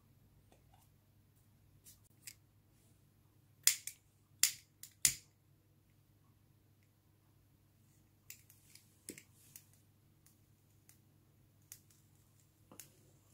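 Handling noise from aluminium drink cans and a lighter: three sharp knocks a little under four to five seconds in, then scattered light clicks as the lighter is worked and the burner lit, over a faint steady hum.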